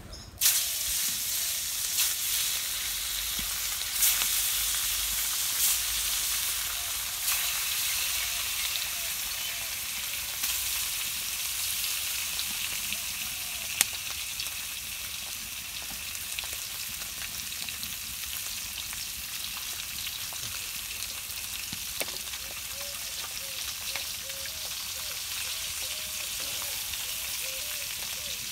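Spiced tilapia pieces frying in hot oil in a karai. The sizzle starts suddenly as the first piece goes in, then surges again each time another piece is added over roughly the first ten seconds, before settling into steady frying. There is one sharp click about 14 seconds in.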